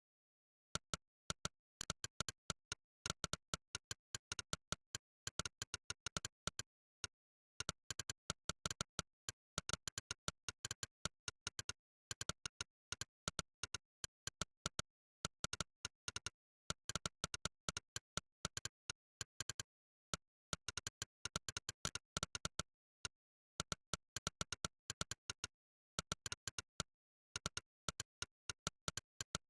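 Monkeytype's synthesized 'click' keypress sound, one click for each key struck, in fast irregular runs of typing with brief pauses of under a second to about a second between runs, and dead silence between clicks.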